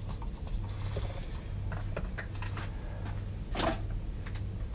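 Light taps and clicks of hand tools and engine parts being handled on a workbench, with one louder knock about three and a half seconds in, over a steady low hum.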